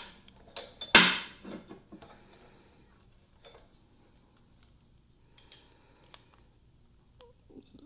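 Metal clinking and knocking as a drilled-out padlock is worked with a screwdriver: one sharp, ringing clank about a second in, then scattered light clicks.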